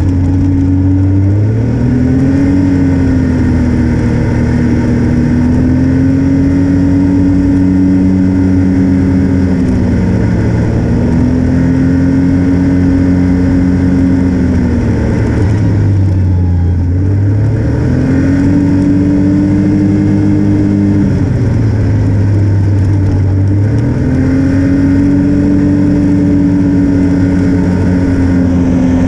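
Snowmobile engine running under way, its pitch dropping and climbing back up about four times as the throttle is eased off and reapplied.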